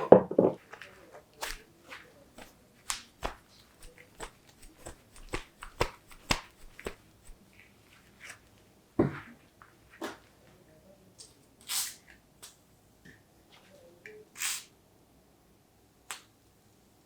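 Irregular light clicks and knocks of metal tools and parts being handled in workshop hand work, with two short hissing bursts in the last third.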